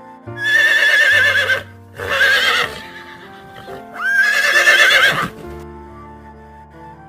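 Horse whinnying three times in a row, each call with a quavering, wavering pitch, the last and longest starting with an upward sweep; background music plays underneath.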